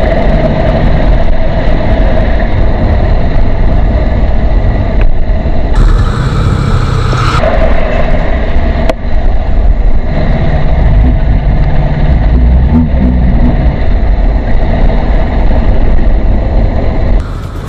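Yamaha FZ25 motorcycle underway, its single-cylinder engine running under loud, steady wind noise on the microphone. A brief hissing surge comes about six seconds in.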